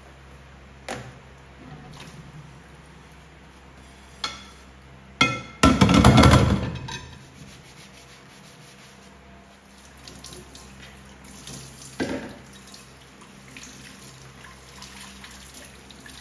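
Dishes being washed by hand at a kitchen sink: water from the tap splashing over plastic bowls and a colander, with a few sharp knocks of the dishes. A loud burst of splashing about six seconds in is the loudest moment.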